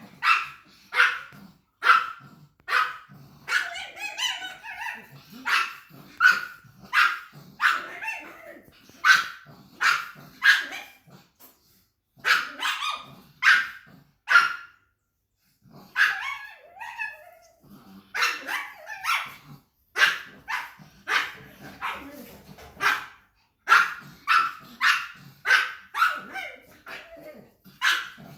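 A pug barking over and over, short sharp barks about one a second, with a short pause about halfway through.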